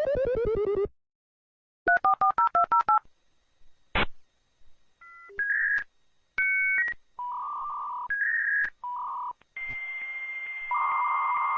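Dial-up computer modem connecting: a quick run of touch-tone dialing, a click, then the handshake's series of beeps and tones turning into a long hissing screech with a steady high whistle. A falling tone, the tail of the previous sound, ends within the first second.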